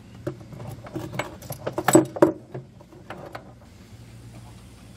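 Metal clinking and knocking as a gear puller and its bolts are fitted onto the hub at the bottom of a top-loading washing machine's drum. The clinks come thickest and loudest about two seconds in.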